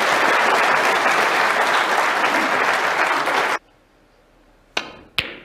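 Snooker audience applauding steadily, cut off suddenly about three and a half seconds in. Then near quiet and two sharp clicks of a snooker shot being played, a cue tip striking the cue ball and the ball striking another.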